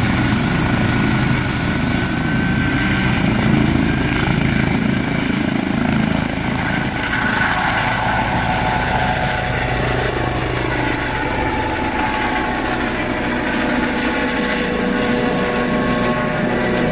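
Eurocopter EC135 air-ambulance helicopter lifting off and climbing away overhead, its turbines and main rotor at takeoff power. A high turbine whine rises about two seconds in, and the deep rotor sound thins out in the second half as the helicopter climbs.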